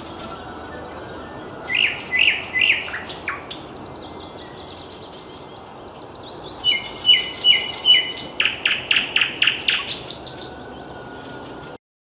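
Nightingale singing: varied phrases of repeated whistled notes, slurred notes and fast rattling trills, with a pause in the middle. The sound cuts off abruptly near the end.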